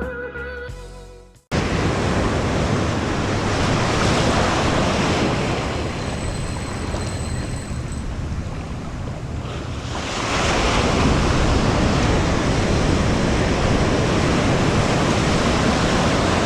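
Ocean surf washing onto the beach, with wind buffeting the microphone; the surf gets louder about ten seconds in. Intro music fades out in the first second and a half before the surf cuts in.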